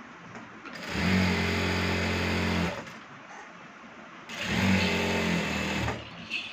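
Zoje industrial lockstitch sewing machine stitching a seam in two steady runs of about two seconds each, with a short pause between them while the fabric is repositioned.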